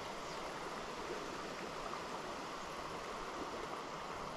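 Flowing river water, a steady even rush with no breaks.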